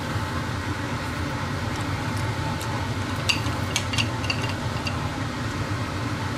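Garlic-topped oysters sizzling on a grill rack over a gas stove, a steady hiss with a low hum underneath. A few light clicks of a utensil against the rack and plate come between about three and four and a half seconds in.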